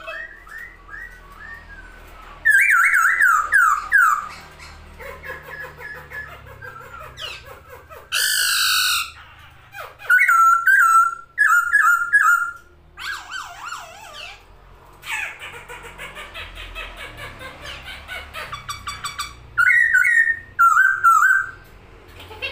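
Masked laughingthrush (poksay Hongkong) calling in loud bursts of rapid, falling, slurred whistled notes, with quieter chattering between the bursts.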